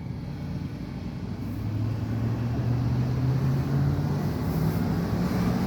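A 2005 Dodge Durango's 5.7 L Hemi V8 pulling away from a stop, heard from inside the cabin, its note rising steadily as it gathers speed. No ticking is heard: new spark plugs have cured the tick, which the owner puts down to misfiring plugs.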